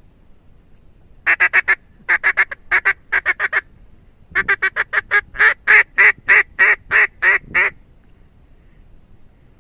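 Duck quacking: three runs of rapid, loud quacks, the last and longest going on for about three seconds.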